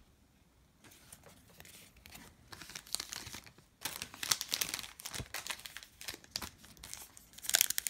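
Wrapper of a trading-card pack being torn open and crinkled in the hands: a run of dry crackles that gets louder about four seconds in.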